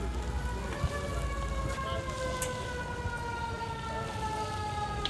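Fire engine siren holding one long tone that slowly falls in pitch, over a steady low rumble.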